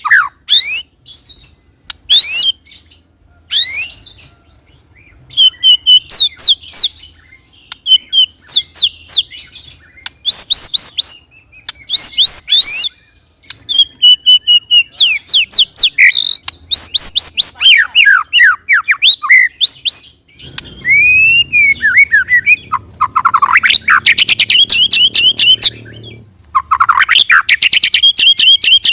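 White-rumped shama (murai batu) singing loudly in varied phrases of quick sweeping whistles separated by short pauses, breaking into fast rolling trills ("ngerol") twice near the end. It is a lure song (pancingan), played to make other shamas answer.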